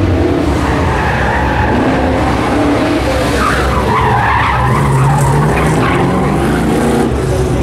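Chevy II Nova's engine running hard through an autocross cone course, with tires squealing through the turns, loudest about three to five seconds in.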